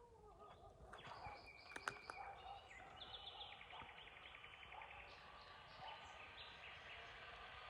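Faint birdsong: small birds chirping, with a rapid trill about three seconds in, over low background noise. There is a sharp click about two seconds in.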